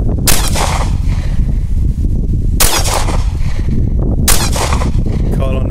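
Ruger SR9c 9mm pistol firing three single shots, about two seconds apart, over a steady low rumble.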